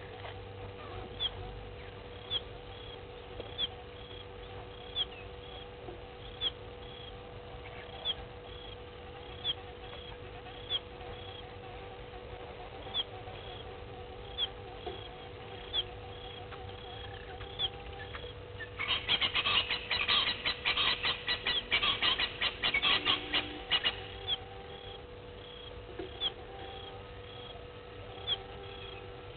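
Bush ambience: a short, high-pitched animal chirp repeating about every second and a half over a steady hum. About two-thirds of the way through, a louder burst of rapid chattering calls lasts about five seconds.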